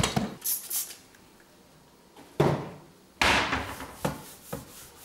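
Kitchen handling noises: a wooden knock about two and a half seconds in, then a louder clatter that dies away over about half a second, followed by a few light clicks.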